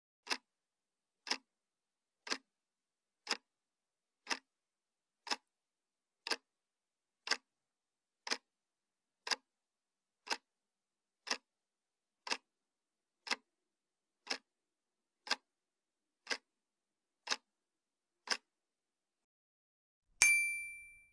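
Clock-tick countdown sound effect, one even tick a second, nineteen in all, then a bright ding about twenty seconds in, louder than the ticks and ringing out: the timer running out as the answer is marked.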